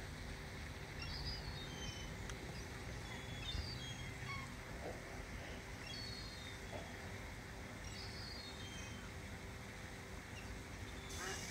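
Faint waterside ambience: birds giving short, high, thin calls every second or two over a steady low rumble, with a louder run of calls starting near the end.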